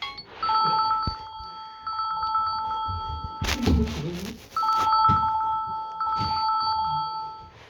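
Samsung Galaxy A14 ringtone playing from the phone's speaker: a trilling two-tone telephone-style ring in two spells of about three seconds each. The spells are split, about three and a half seconds in, by a short burst of noise.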